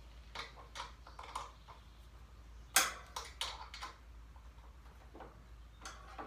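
A string of light clicks and clinks of hand tools against metal mower parts, with one sharper knock a little under three seconds in.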